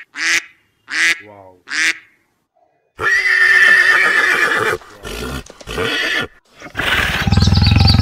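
A duck quacking four short times, then, after a pause, a horse whinnying in one long wavering call followed by shorter snorting calls. A low rumble starts near the end.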